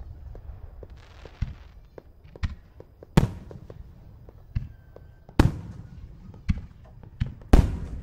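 Aerial firework shells going off in a display: a string of booms, the biggest about three, five and a half and seven and a half seconds in, with smaller bangs between, each trailing off into an echo.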